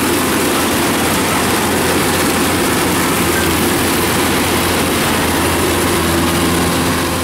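Kubota DC-105X rice combine harvester running at work: its diesel engine and threshing machinery make a loud, steady drone over a constant low hum.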